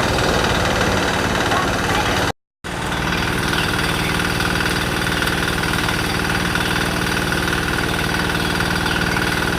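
Engine of a canal water pump running steadily. The sound cuts out completely for a moment a little over two seconds in, then the engine carries on.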